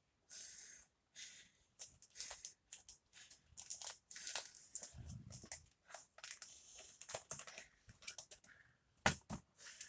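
Packaging being torn open and crinkled by hand: an irregular run of short, faint rustles and rips.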